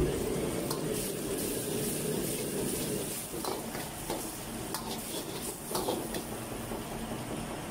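Sayur manis leaves and egg sizzling in a wok as a metal ladle stirs them, with sharp scrapes and clinks of the ladle against the wok every second or so.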